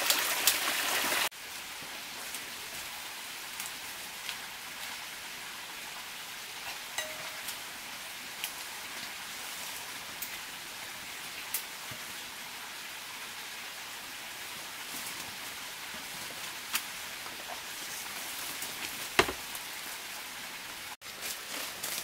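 Water running over rocks in a small forest stream for about a second, then an abrupt cut to a quieter, steady hiss of forest background with scattered small clicks and snaps, and one sharper snap near the end.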